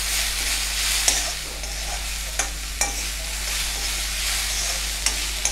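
Diced onion, carrot and potato sizzling in oil in a kadhai while a steel spatula stirs them. The spatula clicks and scrapes against the pan a few times over a steady frying hiss.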